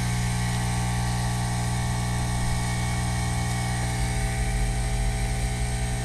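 Steady machine hum made of several fixed tones, with a low rumble growing stronger about four seconds in.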